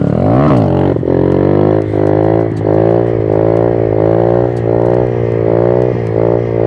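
Honda Titan 150's single-cylinder four-stroke engine revving hard as the clutch is popped in second gear to lift the front wheel. The pitch jumps up and falls back about half a second in, then holds a steady high-revving drone through the wheelie, wavering slightly with the throttle.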